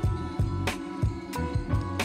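Background music with a steady beat: sustained tones over a bass line, with sharp drum hits every fraction of a second.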